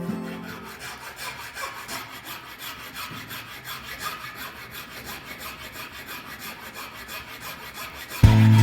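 Hand sanding of a wooden mirror frame: sandpaper rubbing the wood in quick, even back-and-forth strokes, a dry scratchy sound. Guitar music fades out at the start and comes back in abruptly near the end.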